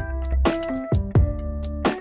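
Background music with a beat: sustained pitched notes over a strong bass line and regular percussive hits.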